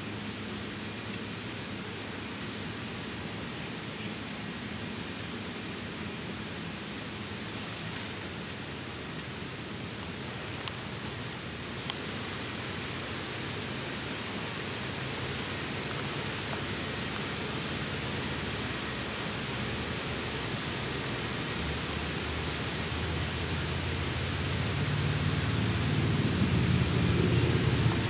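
Steady rushing hiss of the small waterfalls' falling water. A low rumble builds over the last few seconds, with a couple of faint clicks around the middle.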